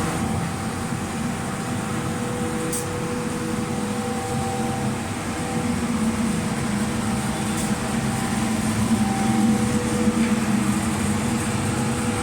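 Oil-fired aluminium melting furnace running in production: the burner and its blower make a steady rumbling roar with a constant hum, swelling a little in the second half.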